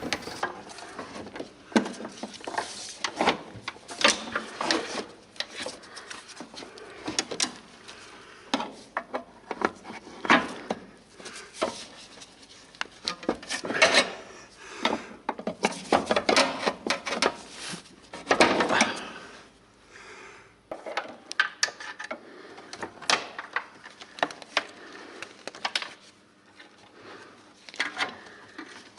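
Irregular clinks, knocks and scraping of metal parts and hand tools being handled while working under a car.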